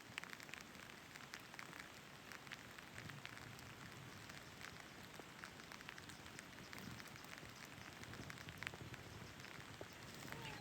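Light rain falling, a faint steady hiss with many scattered drops ticking.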